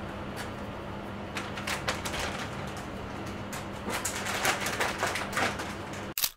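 Irregular light clicks and ticks over a steady low hum. The clicks come thicker around two seconds in and again from about four seconds in, and the sound cuts off abruptly near the end.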